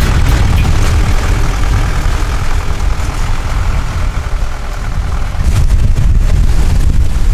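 Boat motor running under way, with heavy wind rumble on the microphone and choppy water rushing past; it gets louder about five and a half seconds in.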